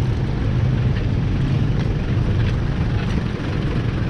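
Motorcycle engine running at a steady speed while riding, a constant low hum mixed with road and wind noise.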